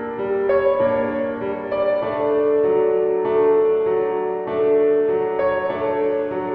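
Background instrumental music of slow, held keyboard notes, the melody moving to a new note about every half second to a second.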